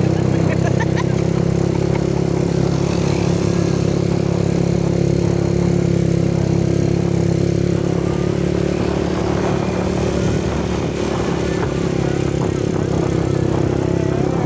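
Small motorcycle engine running at a steady speed while riding, its pitch holding level.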